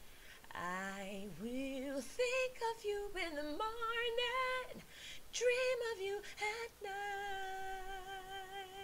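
A woman singing alone, with no accompaniment heard: a take of one R&B harmony part. She moves through several quick runs and slides, then holds one long note with a slight vibrato near the end.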